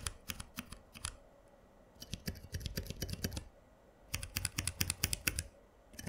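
Keystrokes on a switch-tester pad fitted with Zealios 67g tactile switches and Zilent 67g switches, the dampened, quieter version of the Zealios. The keys are tapped in three quick runs separated by short pauses.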